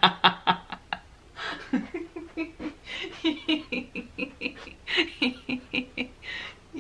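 A woman laughing hard: quick runs of short laughs, about four or five a second, broken several times by breathy gasps for air.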